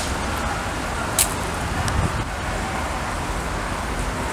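Steady outdoor background rumble with two short sharp clicks, one at the start and one about a second in.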